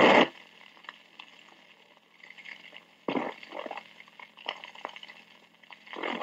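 Dallas Police Department Dictabelt radio recording played back at half speed: a steady low hum and faint hiss between transmissions, broken by a brief burst of noise about three seconds in.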